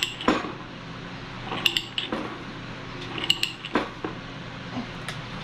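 Ratchet pipe threader clicking in short groups about every second and a half as its handle is worked back and forth, the die cutting the last, tight threads on a 1/2-inch steel pipe.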